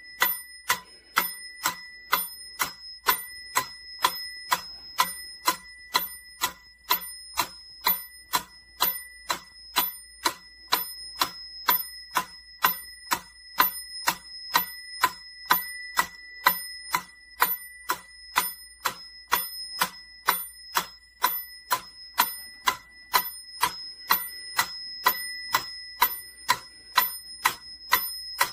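Mechanical pyramid metronome ticking steadily, about two sharp clicks a second, with a bright metallic ring.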